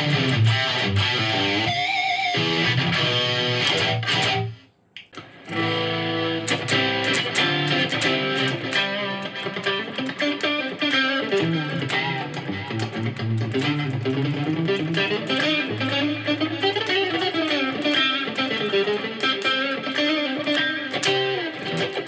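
LUXARS S-G62 headless electric guitar played in a sound test: picked single-note lines and chords. The playing stops briefly about five seconds in, then carries on.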